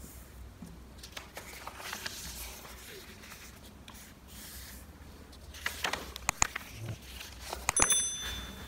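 Origami paper rustling and sliding on a wooden tabletop as it is folded and creased, with sharp crinkles and taps about six and eight seconds in. Near the end a short, high bell-like ding rings and fades.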